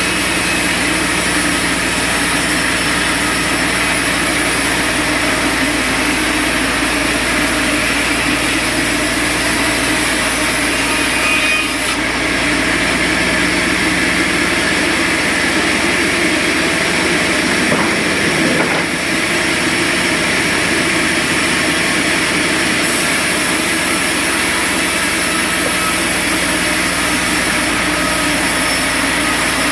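Sawmill running steadily, its saw cutting through a hardwood log, with a continuous mechanical drone that does not let up.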